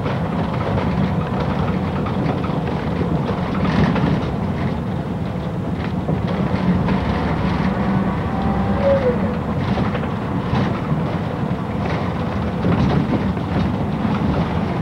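City bus driving, heard from inside the passenger cabin: the engine runs steadily under way, and the body and fittings give off frequent small rattles and knocks.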